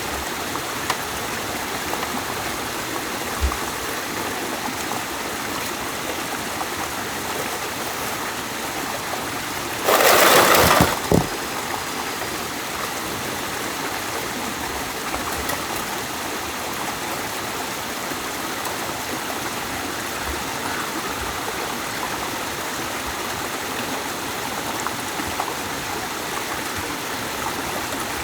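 Jungle stream water flowing steadily. About ten seconds in, a loud noisy burst lasting about a second rises above it, and there are a few faint knocks.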